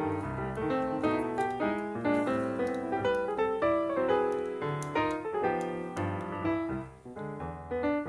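Background piano music: a light keyboard tune of quick struck notes, several a second.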